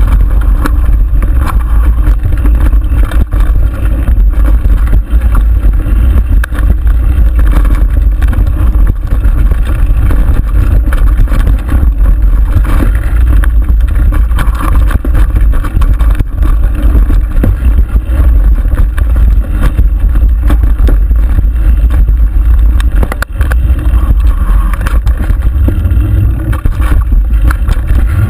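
Mountain bike descending rough dirt singletrack, heard through the rider's own mounted camera: a steady loud rumble of wind and trail vibration with constant rattling and knocking from tyres and frame over bumps.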